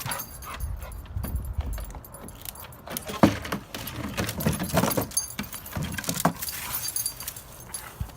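Irregular jingling and clicking of a dog's metal collar tags as the dog moves about.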